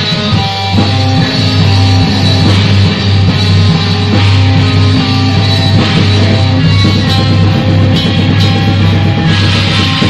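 Black metal band playing live, loud and continuous: electric guitar and drum kit.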